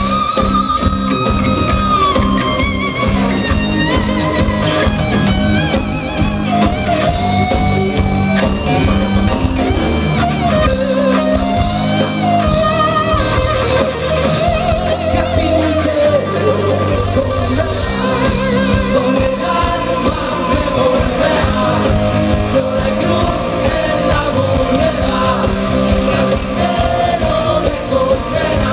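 A rock band playing live, with a lead singer, electric guitars, bass and drums.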